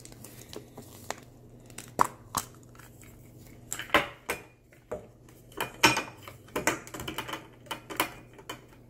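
Hard plastic toy Poké Ball being handled and opened: a string of irregular clicks and clacks as its two halves are pulled apart and fitted back together, thickest in the second half.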